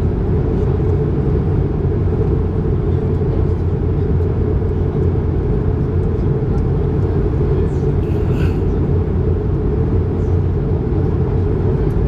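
Steady cabin noise of an Airbus A220-300 in cruise: an even, low roar of airflow and its Pratt & Whitney PW1500G geared turbofan engines, heard from inside the cabin by the wing.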